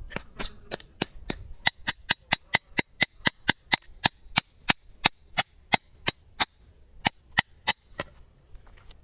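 A steady run of sharp, bright knocks, about three to four a second, that stops shortly before the end.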